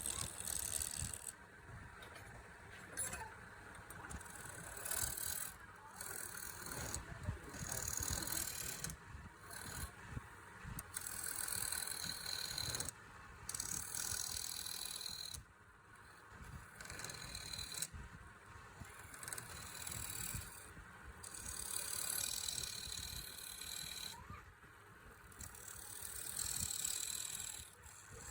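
Wood lathe turning a workpiece while a cutting tool scrapes and hisses against the spinning wood in repeated passes of one to a few seconds, with short breaks between the cuts.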